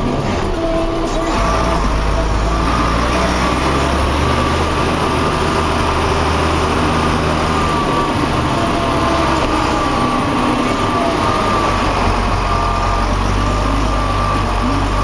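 Deutz tractor engine running steadily while the tractor drives, heard up close from the bonnet. Its low drone shifts in pitch about eight seconds in.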